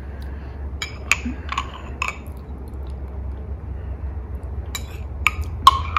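Metal spoon clinking against a ceramic mug as food is scooped out: about four light ringing clinks in the first two seconds, then a quiet stretch, then another group of about four near the end.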